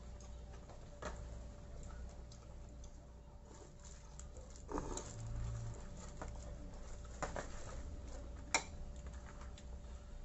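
Spoons and chopsticks lightly clicking and tapping against bowls and plastic takeaway boxes during a meal, a scatter of small knocks with one sharper click near the end, over a faint steady hum.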